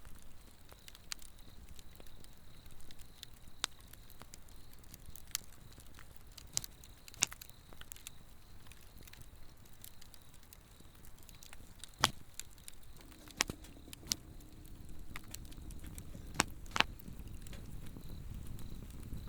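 Swedish torch log fire crackling, with irregular sharp pops, several louder ones in the second half. A steady high insect trill runs underneath.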